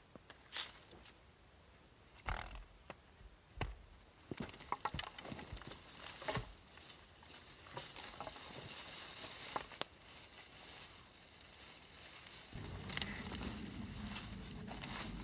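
Wooden sticks knocking and snapping while dry twigs and brush crackle and rustle, handled to build up a debris shelter and its bedding. A low steady rumble comes in for the last couple of seconds.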